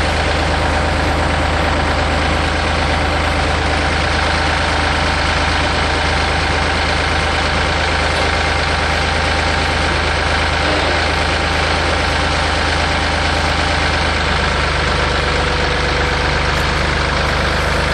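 Tractor engine running at a steady speed with an even hum, used to pull a fence post out of the ground.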